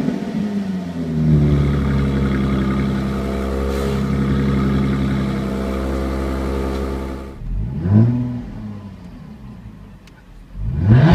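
Jaguar F-Type V6 S's supercharged V6 heard at its twin centre exhaust: the revs fall away from a blip, then it idles steadily for several seconds. It then drops abruptly to a quieter idle, broken by two short throttle blips, one about eight seconds in and one at the end.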